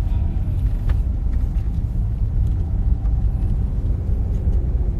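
Steady low rumble of a car heard from inside its cabin, with a faint click about a second in.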